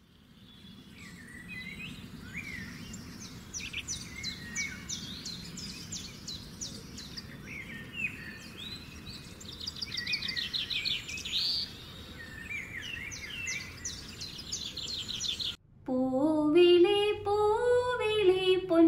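Several birds chirping and trilling over a steady low outdoor noise, fading in at the start. The birdsong cuts off suddenly about three-quarters of the way through, and a woman's voice sings a slow melody with long held, gliding notes, louder than the birds.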